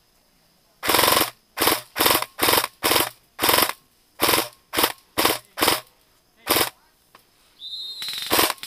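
Airsoft gun firing in about a dozen short bursts with brief pauses between them. Near the end a steady high tone and continuous noise join in beneath more bursts.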